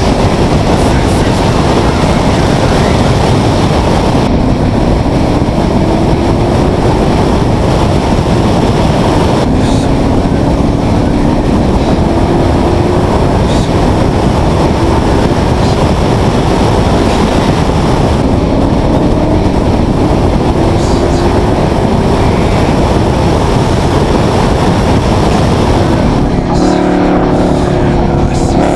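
Ford Mustang race car's 302 V8 at track speed, heard under heavy wind buffeting on the microphone, its note rising several times as it accelerates. Near the end the engine comes through clearer and louder.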